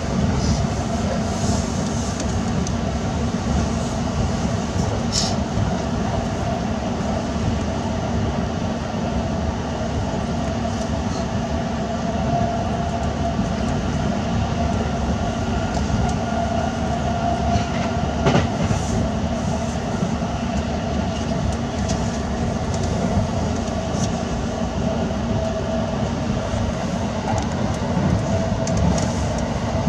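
Running noise heard inside the cabin of an E353 series limited express electric train at speed: a steady low rumble with a faint droning tone, broken by a few short sharp clicks.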